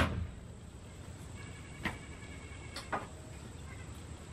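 Two light knocks on wood about a second apart, a hammer tapping a 2x4 roost board against the coop's plank wall.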